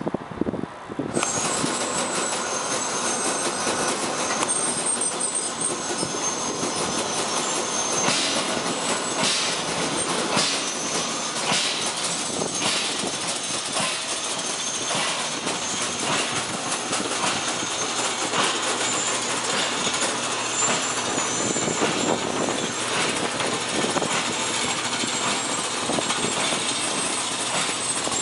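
Automatic breading machine for fine crumbs running, with a continuous busy clatter of many small clicks and rattles that begins about a second in.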